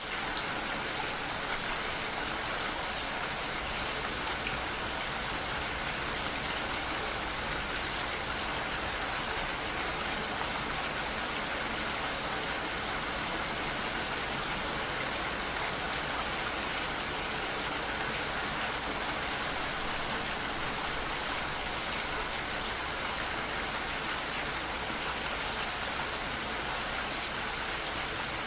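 Steady rain falling, an even hiss of drops that holds without change.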